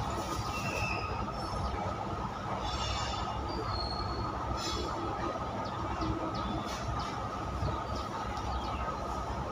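Freight train of covered goods wagons rolling past: a steady rumble of steel wheels on rail, with scattered clicks and several brief high-pitched wheel squeals.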